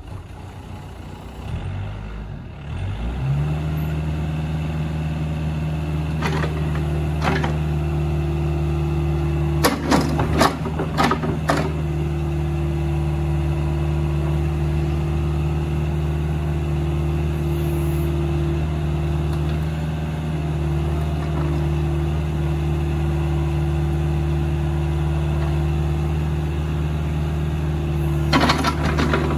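Kubota U40-6 mini excavator's diesel engine starting about two seconds in, then running steadily. Several sharp knocks stand out over it: a few a third of the way in, and another near the end.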